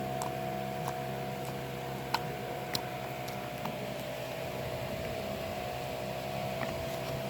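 Slime being squeezed and pressed by hand for ASMR, giving a few sharp little clicks and pops, the clearest about two seconds in and a moment later, over a steady electrical hum.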